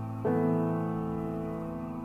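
Background music: slow piano chords, one struck about a quarter second in and left to ring and fade.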